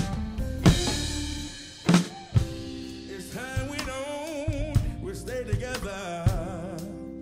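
Blues-rock music with a drum kit played along: loud cymbal crashes with bass drum hits in the first two seconds, then lighter drum hits under a wavering lead melody with heavy vibrato from about three seconds in.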